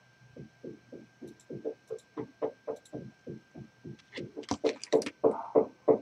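A chicken clucking in a rapid run of about four clucks a second, growing louder toward the end.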